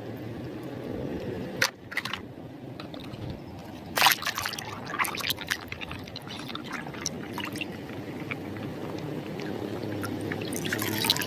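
Water pouring and trickling as a muddy toy vehicle is rinsed, with a few sharp knocks and small clicks of the toy being handled.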